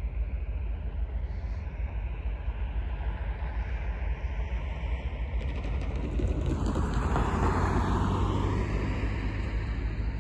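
A car passes on the road, its tyre and engine noise swelling and then falling away about six to nine seconds in, over a steady low rumble.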